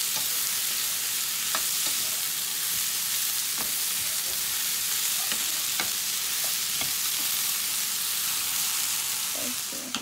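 Chicken and cabbage sizzling steadily in a frying pan, stirred with a wooden spatula that scrapes and knocks against the pan now and then. The sizzle drops away near the end.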